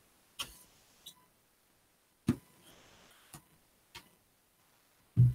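A cardboard shipping box being opened with a small knife: scattered clicks and taps of the blade and hands on the cardboard, with a short scrape around the middle and a louder thump near the end.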